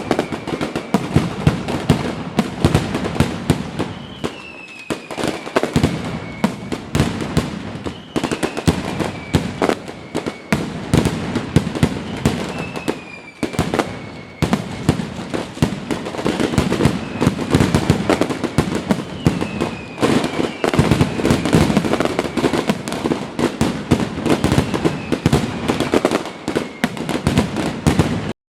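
Fireworks display going off in rapid succession: dense bangs and crackling throughout, with a short falling whistle about every four seconds. The sound cuts off suddenly near the end.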